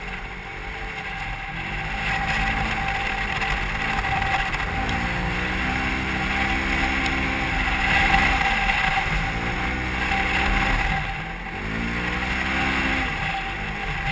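Polaris RZR XP 1000's parallel-twin engine heard from inside the open cab while driving through sand dunes. The revs rise and fall several times as the throttle is worked, over a steady high whine and rushing noise.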